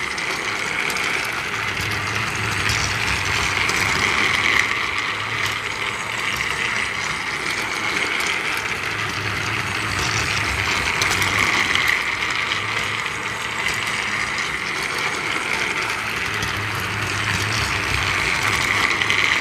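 Small electric motor and gears of a battery-powered toy train running steadily, with a whir that swells and fades every few seconds.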